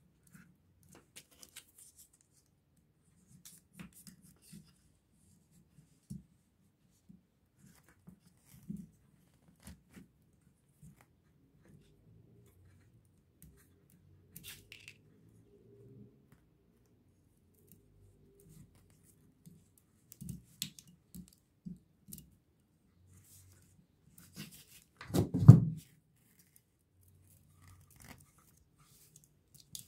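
Hands pressing enamelled copper wire coils into the paper-insulated slots of a 1 HP water pump motor's stator: scattered light scratches, rustles and clicks, with one louder low thump about 25 seconds in.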